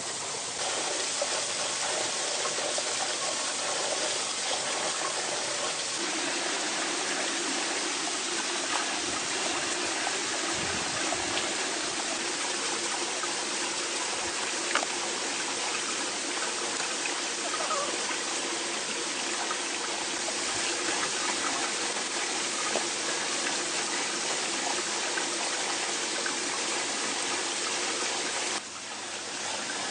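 Steady rush of a running stream, with an occasional light click over it.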